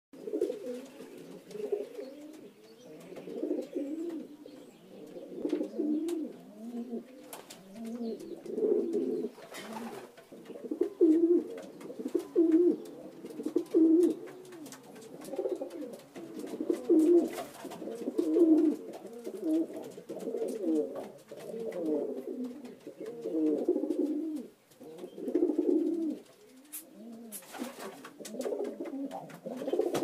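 Domestic pigeons cooing, a steady run of repeated, overlapping low coos.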